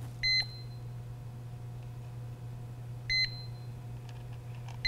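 Amprobe RLD-1 refrigerant leak detector giving short, high alarm beeps: two about three seconds apart, then a faster run starting right at the end as its wand comes back in to the flare nut. The beeps signal that it is sensing refrigerant leaking from a loose flare nut.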